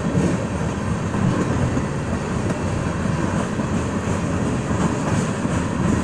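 Freight train of tank cars rolling past at about 30 mph: steady wheel-on-rail rumble and clatter from the passing cars.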